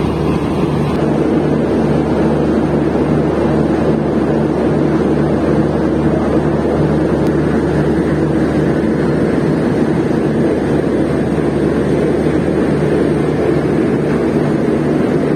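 Indian Railways diesel locomotive's engine running steadily up close with a low, even throb, as the locomotive draws up to couple onto the train.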